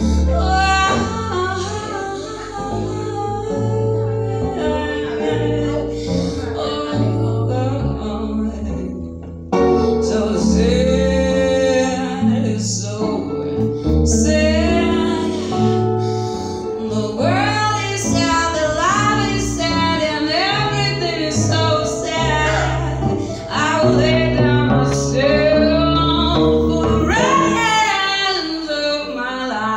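Live slow blues on acoustic guitar and Korg keyboard, with a woman singing long, bending lines over it; the music jumps louder about ten seconds in.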